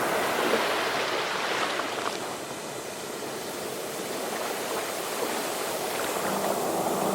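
Ocean waves washing in a steady hiss of surf, easing a little midway and swelling again toward the end. Music comes in faintly near the end.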